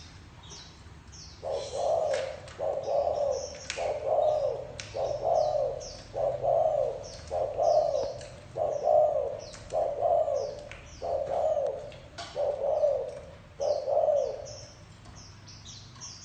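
Spotted dove giving its bow-coo ('gù'): a steady series of eleven low arched coos, about one a second. The coos start about a second and a half in and stop shortly before the end. Small birds chirp faintly and high in the background.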